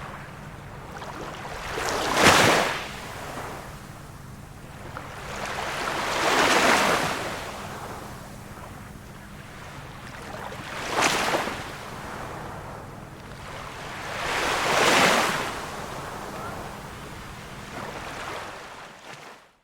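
Small waves of a calm sea breaking and washing, four surges about every four seconds with a low steady wash between them. The sound cuts off abruptly at the very end.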